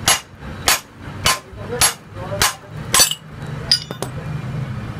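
Hammer blows on a steel bolt used as a drift, six sharp metal strikes about every 0.6 s, driving the worn wheel bearing out of a Peugeot 206's steering knuckle. A bit later there is a brief metallic clink and ringing as the bearing comes free.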